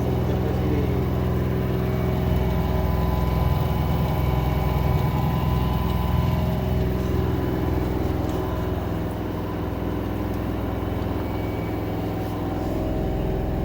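LG 10 kg front-load washing machine running with its drum turning: a steady low motor hum with a gritty rattle that sounds like pebbles rolling round inside, a noise the owner blames on the motor.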